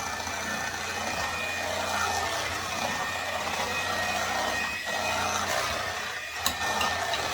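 A small kitchen appliance motor running steadily, an even whir over a low hum, with a sharp click about six and a half seconds in.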